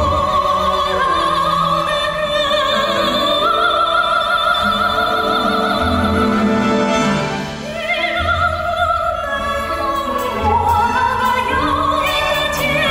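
A male singer's high voice sung live with vibrato, holding long notes and gliding between them, over orchestral accompaniment.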